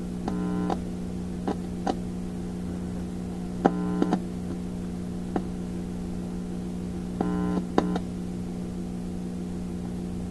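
Symphonic 962 record player's tube amplifier humming steadily through its speaker, a hum that does not change with volume and that the repairman puts down to the power supply. Three times a louder buzz of about half a second cuts in as fingers touch the tonearm's cartridge wires, showing the amplifier is amplifying, with a few small clicks between.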